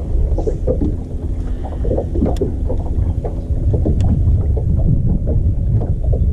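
Steady low rumble of wind on the microphone aboard a bass boat, with two light clicks about two and a half and four seconds in.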